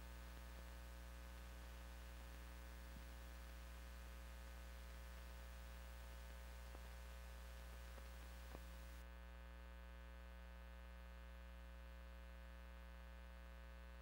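Near silence: a steady low mains hum with faint hiss and a few faint ticks; the hiss drops away about nine seconds in, leaving only the hum.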